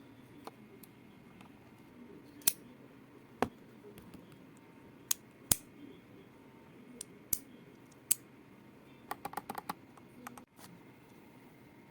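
Keys on a keyboard with classic keycaps clacking, pressed one at a time a second or two apart, then a quick run of about eight keystrokes near the end.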